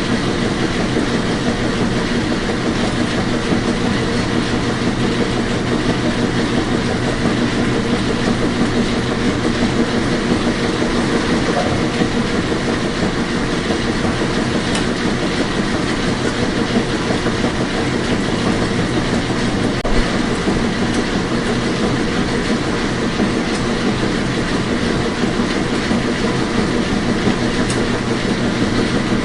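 Washing machine running: a steady rumble with a constant motor hum, and one brief knock about twenty seconds in.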